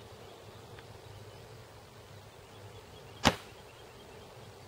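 A single sharp shot from a Silverback SRS A2 spring-powered bolt-action airsoft sniper rifle, about three seconds in.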